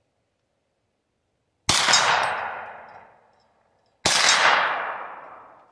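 Two 9mm shots from a Hi-Point 995 carbine fitted with a muzzle brake, a little over two seconds apart, each trailing off in a long echo.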